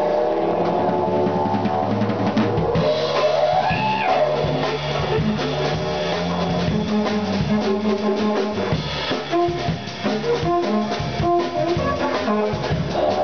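Didgeridoo played live over a drum kit and band: a low droning tone that shifts between held pitches, with a sweep rising in pitch about three seconds in.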